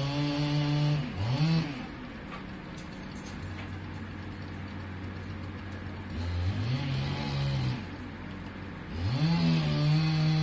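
Two-stroke chainsaw cutting into the base of a large tree trunk to fell it, heard through a window. It runs at full throttle, drops to idle about a second in, revs back up around six seconds, eases off again near eight, and goes back to full throttle for the cut a second later.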